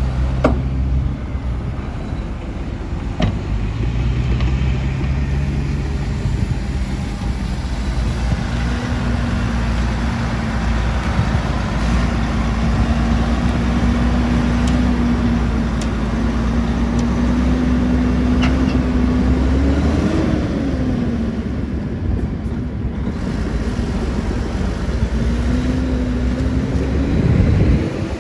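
Heavy diesel engine of construction machinery running steadily, with a pitched whine that rises and falls about two-thirds of the way through and again near the end. A few sharp clicks sound early on.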